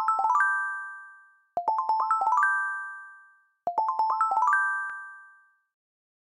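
Intro jingle: a quick rising run of bell-like chime notes, repeated about every two seconds, each run ringing on and fading away.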